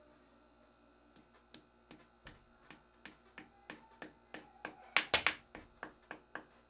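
A quick, fairly even run of light taps and knocks on a hard surface, about two to three a second, starting about a second in and loudest around five seconds in.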